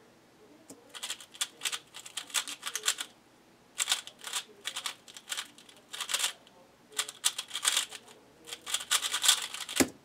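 A QiYi Valk 3 speedcube being turned at full speed in a timed solve: fast runs of clacking layer turns with brief pauses between them, about nine seconds of turning. One heavier thump near the end as the solve stops.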